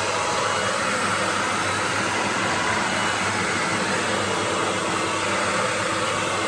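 Hair dryer running steadily on a loud setting, blowing hot air onto built-up ice to melt it, with a low motor hum under the rushing air.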